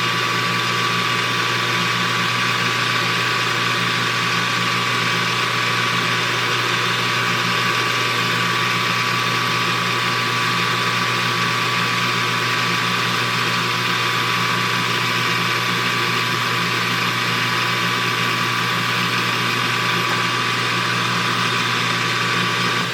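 Metal lathe running steadily with a constant motor and gear hum while a high-speed steel tool bit takes a cut.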